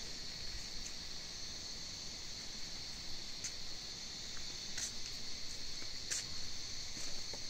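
Crickets in a steady, high-pitched chorus, with a few faint clicks in the middle.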